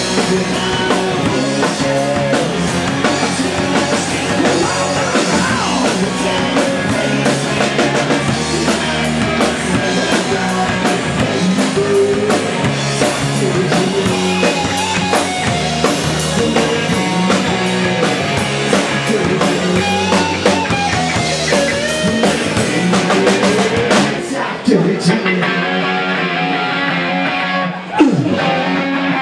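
Live rock band playing electric guitar, bass guitar and drum kit, with many bending, gliding guitar notes. Near the end the sound drops briefly and comes back in on a loud hit.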